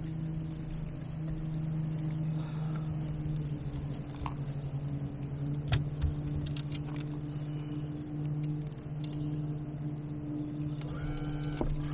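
Steady low hum of a boat motor, with a few sharp clicks and knocks from tackle being handled about four to six seconds in.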